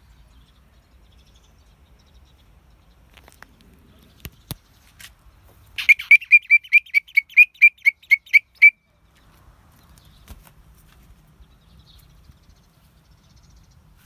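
A bird calling: a quick run of about fourteen short, high chirps at about five a second, lasting some three seconds midway. Faint low background noise and a couple of light clicks come before it.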